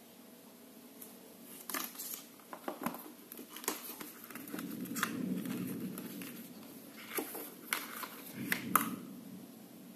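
Cardboard packaging and a plastic charging cable handled: scattered clicks and taps with stretches of rustling as a charging cable is pulled from a white cardboard box insert, the sharpest click near the end.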